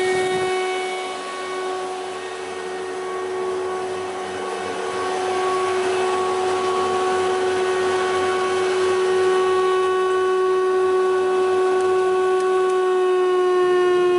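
Guilliet LKL thickness planer running with no board being fed, giving a steady high whine with a stack of overtones that holds its pitch throughout.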